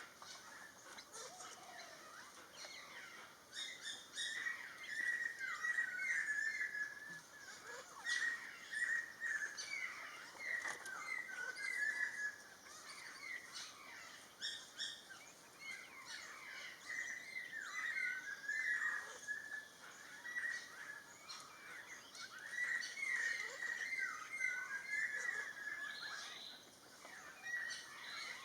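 Wild birdsong: quick, warbling, chattering phrases, one after another every second or two, with a short lull near the end.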